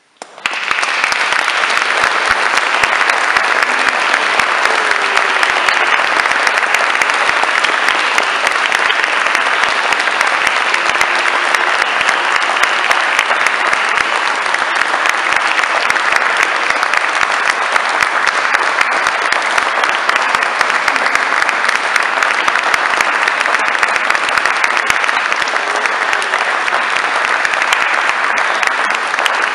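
Audience applauding, breaking out suddenly and then keeping up a steady, dense clapping.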